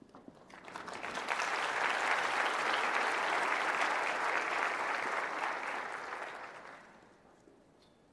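Large audience applauding in a hall. The clapping builds over the first second or so, holds steady, then dies away about a second before the end.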